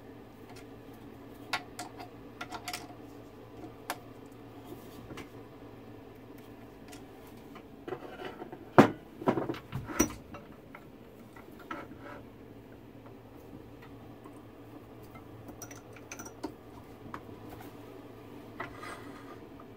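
Metal clicks and knocks from a wood lathe being set up by hand, with a cluster of louder clunks about nine to ten seconds in as the tailstock is brought up against the blank and locked. A steady low hum runs underneath.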